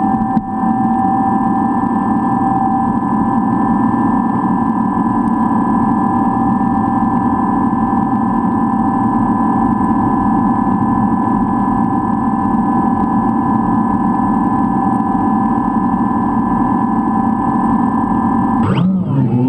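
DJI Phantom quadcopter's four electric motors and propellers spinning at idle on the ground, a steady whine. Near the end the whine rises sharply in pitch as the throttle is opened for take-off.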